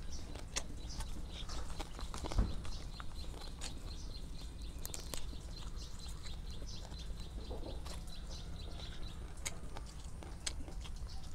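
Quiet eating sounds: small clicks and a thump as food is taken and chewed. A bird chirps over and over faintly in the background for several seconds.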